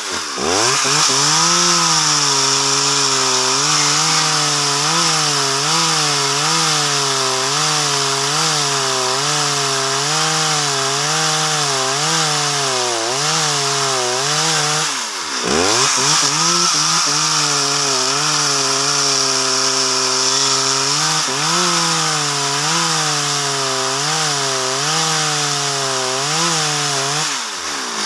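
Two-stroke Stihl chainsaw ripping lengthwise through a very hard log, its engine pitch wavering up and down as the chain bogs under load and picks up again. The revs drop sharply and climb back just after the start and again about halfway through, and fall once more near the end.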